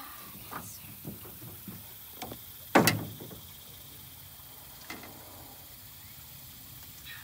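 A freshly caught fish flopping against the floor of a small boat: a few light knocks, one loud thump about three seconds in, and another knock near five seconds.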